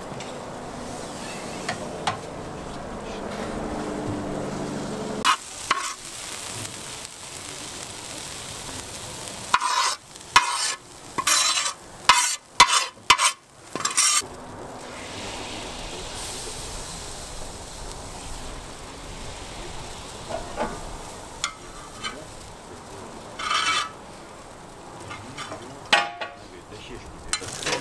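Metal spoon scraping and knocking beetroot out of a frying pan into a cauldron of boiling broth, with a quick run of loud scrapes and clanks about ten to fourteen seconds in and a few more near the end. A steady hiss of the boiling pot runs underneath.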